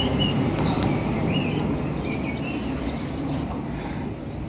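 Small birds chirping in short, repeated chirps over a steady low background rumble.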